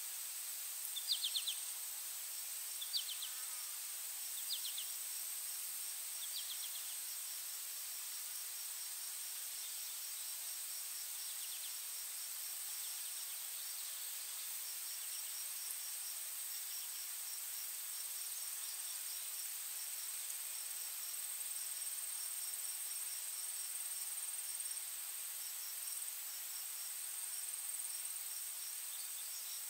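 Insects chirping: a steady high-pitched drone with rapid pulsed trills throughout. In the first six seconds or so, a few short chirps sound about every one and a half seconds, growing fainter.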